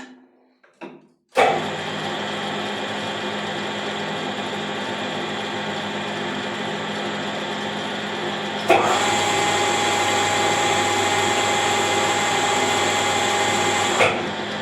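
Metal lathe switched on about a second and a half in and running steadily with a gear whine. About nine seconds in there is a clunk and the running gets louder, with an added steady whine; near the end another clunk, and the lathe starts to wind down.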